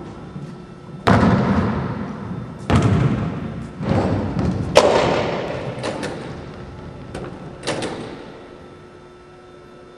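A series of five loud thuds and bangs, each ringing out in the long echo of a large gymnasium, from a basketball bouncing on the hardwood court and the gym's double doors banging.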